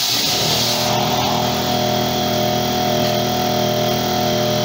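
An animatronic Halloween prop running, heard as a steady droning hum at one fixed pitch that sets in about half a second in, over a hiss that fades soon after.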